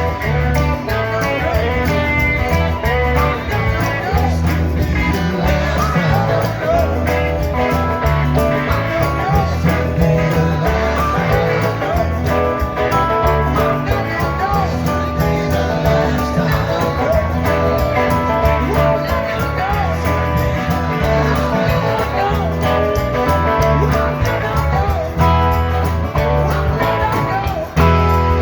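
Live rock band playing loudly, with electric guitars over a steady bass line and a drum beat.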